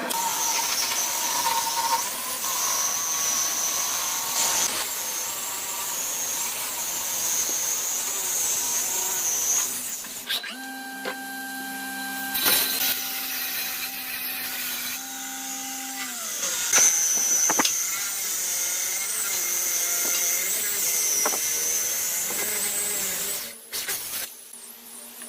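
Electric power tools working wood. A steady high motor whine with grinding noise runs for about ten seconds, then a lower steady hum for several seconds, then the high whine again until it cuts off suddenly near the end.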